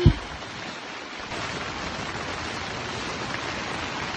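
Heavy rain falling steadily, a constant hiss that grows louder about a second in. A short low thump comes right at the start.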